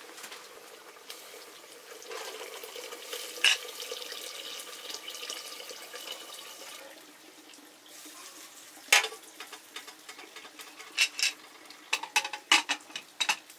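Cooking over a pot: a steady hiss of liquid for several seconds, then a string of sharp clinks and knocks of metal utensils against the pot, most of them near the end.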